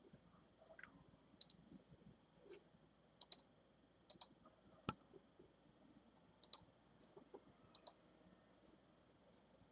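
Faint clicks of a computer mouse button, mostly in quick pairs as it is pressed and released, repeated several times with one sharper click near the middle.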